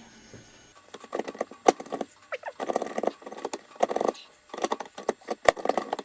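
Metal transmission parts clinking and rattling in repeated short bursts with sharp clicks, as a part of a 10R80 automatic transmission is jiggled and turned to line up and seat onto its splines.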